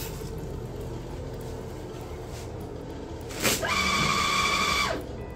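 Water running steadily from a bathtub faucet. At about three and a half seconds in, a San Jamar paper towel dispenser's motor starts up with a rising whir, then a loud steady whine for about a second as it feeds out towel, stopping suddenly.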